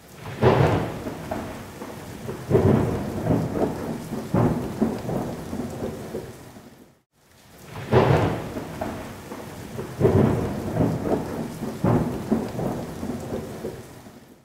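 Thunder over steady rain: three crashes of thunder, each fading out slowly. It breaks off for a moment about halfway through, then the same three crashes come again.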